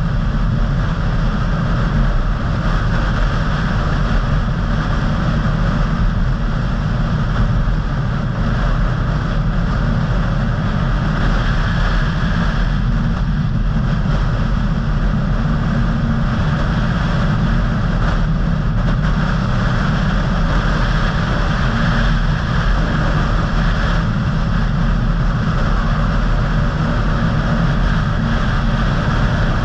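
Car driving at a steady speed, heard from inside the cabin: a constant low rumble of engine and road noise with tyre hiss over it, with no changes in pace.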